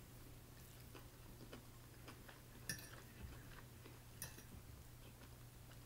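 Near silence with a low steady hum and a few faint clicks from eating, a fork working in noodles on a plate, about two and three and four seconds in.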